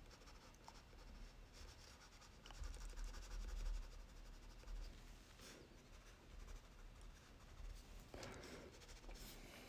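Black Crayola wax crayon scratching faintly across drawing paper in quick, short hatching strokes, building fur texture. A low rumble swells about three seconds in.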